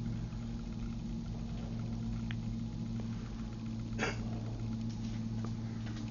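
A steady low hum, with one brief sharp noise about four seconds in.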